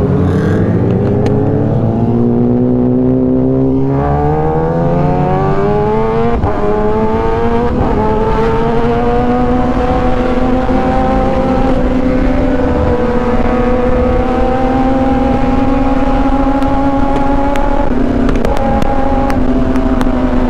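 Kawasaki Ninja ZX-10R's inline-four engine accelerating hard through the gears, its pitch climbing and breaking at three quick upshifts in the first eight seconds. It then runs steadily at cruising speed, with a slight dip near the end, under a steady rush of wind.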